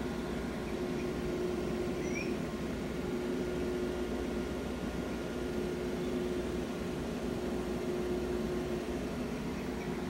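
Steady mechanical hum with a few constant tones over a low rumble, like an appliance or fan running. A brief, faint high chirp rises about two seconds in.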